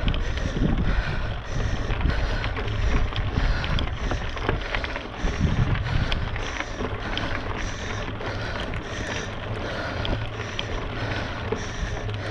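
Wind rumbling on a body- or bike-mounted action-camera microphone during a mountain-bike ride, over steady tyre and riding noise. A short hiss recurs a little faster than once a second.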